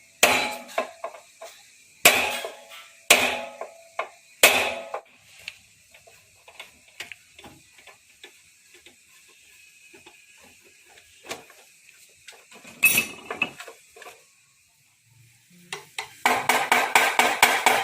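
Metal moped parts being handled, with several sharp clanks that ring briefly. About sixteen seconds in, a fast, steady rattling of roughly five strokes a second starts.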